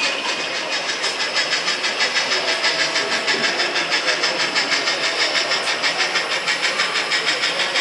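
O-scale model steam locomotive's sound unit chuffing steadily as it runs, an even hissing puff about four to five times a second.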